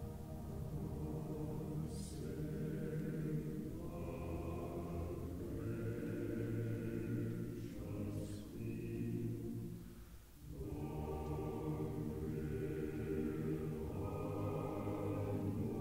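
Choir singing slow, sustained chords, with a brief break about ten seconds in.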